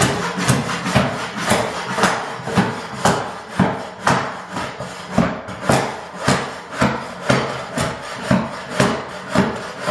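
Flat-bladed shovel jabbed again and again along a wooden subfloor, scraping up carpet tack strips and staples, about two sharp scraping strikes a second.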